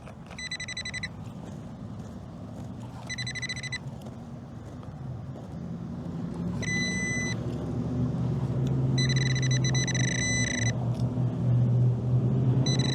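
Nokta Triple Score metal detector giving repeated high-pitched target tones, five of them, each lasting from about half a second to over a second, on an iffy signal that turns out to be a small brad. Underneath, a low rumble builds and grows louder through the second half.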